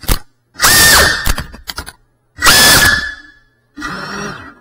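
Cinewhoop drone's brushless motors and ducted propellers whining in three short throttle bursts, each a high whine that drops in pitch as the throttle is let off; the last burst is weaker.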